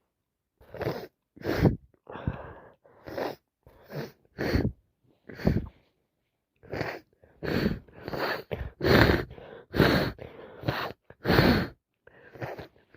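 A woman with a head cold that has turned into sinusitis sneezing in a rapid fit of more than a dozen short, wet sneezes, with a brief pause about halfway through.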